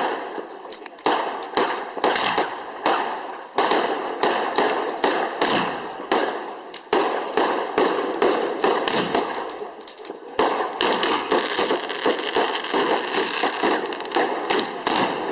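Fireworks going off in a dense run of sharp crackling reports, many in quick succession, with a few short lulls.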